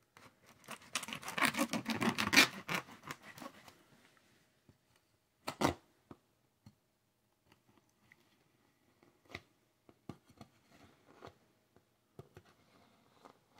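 A cardboard shipping box being worked open: a dense run of scratchy, tearing noise lasts about three seconds. A single knock comes a couple of seconds later, then sparse small clicks and scrapes as a box cutter is set to the packing tape.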